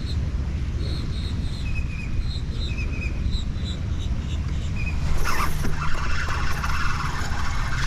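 Wind buffeting the microphone, with a small bird chirping again and again in short high notes; about five seconds in a rougher hissing, rustling noise joins.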